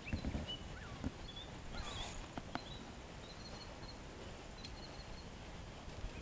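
Welsh cob's hooves stepping on gravel, a few soft thuds in the first second, with small birds chirping intermittently over a quiet outdoor background.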